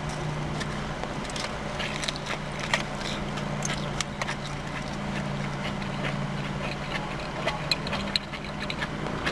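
Biting and chewing a veggie burger, with irregular small mouth clicks and crackles, over a steady low hum.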